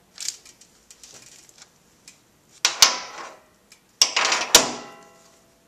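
Metal clicks and clinks of a socket wrench working the oil drain plug loose under a motorcycle engine. A sharper clank about four and a half seconds in rings briefly like struck metal.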